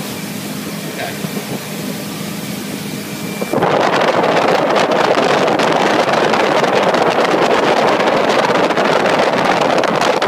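Motorboat engine running steadily under way, then about three and a half seconds in a loud rush of wind on the microphone suddenly takes over and stays.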